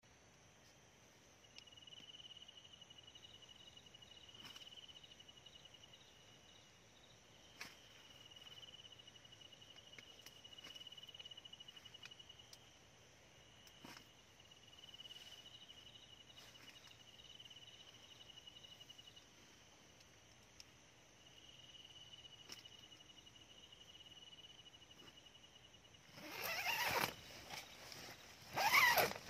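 Insects trilling: a high, rapidly pulsing cricket-like trill in phrases of a few seconds, over a fainter steady high drone, with a few small clicks. Near the end come two louder, brief sounds that sweep up and down in pitch.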